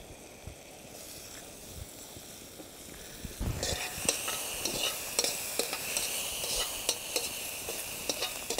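Sliced mushrooms and onion frying in butter in a wok. The sizzling jumps much louder about three and a half seconds in, with the clicking and scraping of a metal utensil stirring them in the pan.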